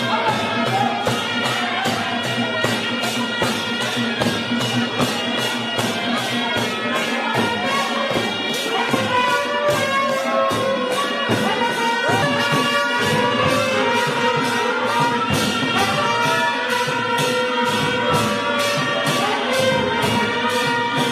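Dance music with a steady beat of about two strokes a second under a wailing, horn-like lead melody.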